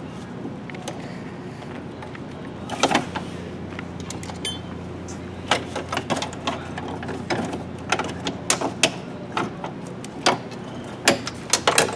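Irregular clicks and light knocks of a plastic interior door handle being worked off its frame by hand, over a steady low hum.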